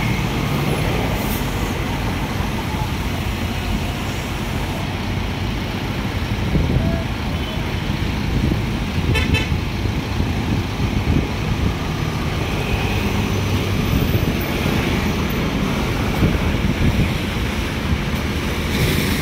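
Heavy diesel engines of mobile cranes running steadily, with a short horn toot about nine seconds in.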